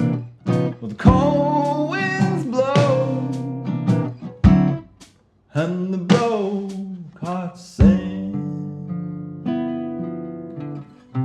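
Acoustic guitar strummed and plucked, with a singing voice gliding between notes. The music breaks off briefly about five seconds in, then goes on with sustained chords.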